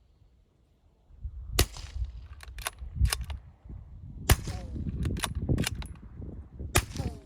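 Suppressed 300 Blackout bolt-action rifle fired three times through a home-built 2-inch-diameter suppressor, the shots about two and a half seconds apart, each a muffled report with a short echoing tail. Sharper metallic clacks of the bolt being worked come between the shots.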